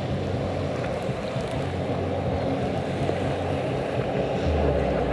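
Racing sit-down jet skis (personal watercraft) running at full speed: a steady, low engine drone mixed with rushing water.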